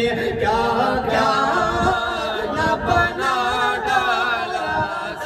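A man sings a Sufi kalam solo into a microphone, drawing out a long line with wavering ornaments, without clearly spoken words.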